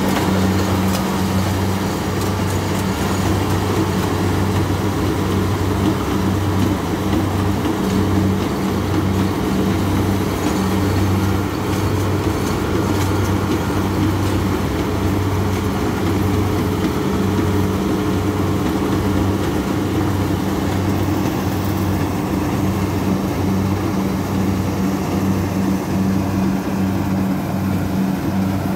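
Kubota DC-60 combine harvester running steadily under load as it cuts and threshes lodged rice: a low diesel engine drone that pulses evenly, with the clatter and rush of the harvesting machinery over it.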